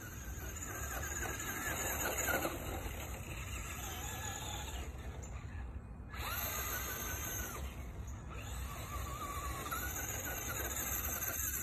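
Traxxas Rustler XL-5 RC truck's brushed electric motor and drivetrain whining as it runs across grass, the pitch rising and falling with the throttle. The whine cuts out briefly about six seconds in, then comes straight back.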